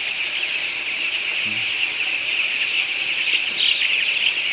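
A huge flock of young broiler chickens peeping all at once: a dense, unbroken chorus of high cheeps.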